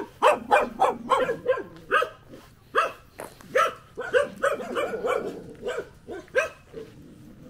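A dog barking repeatedly in short barks, about two a second, stopping shortly before the end.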